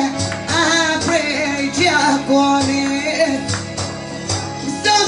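Live tallava music: a woman singing into a microphone while beating a def frame drum in a steady rhythm, over a sustained low accompaniment.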